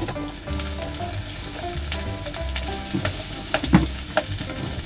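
Chopped green onions, onion and carrot sizzling in oil in a nonstick frying pan, the first stage of a stir-fry where the scallions are fried to flavour the oil. A wooden spatula stirs and tosses them, knocking against the pan now and then, most sharply about three-quarters of the way through.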